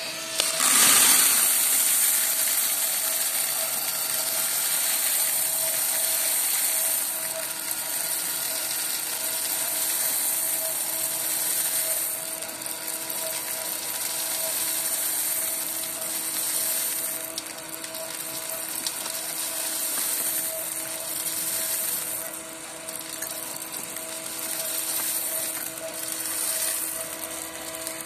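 Roasted coffee beans rattling and hissing as motor-driven stirring arms sweep them around a stainless steel cooling tray, over a steady motor hum. The rattle jumps to its loudest about a second in, then rises and falls as the beans are stirred and pushed out through the tray's discharge door.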